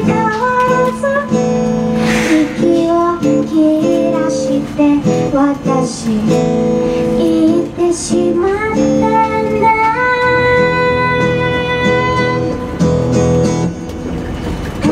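A woman sings a song while strumming her acoustic guitar, holding one long note about two-thirds of the way through.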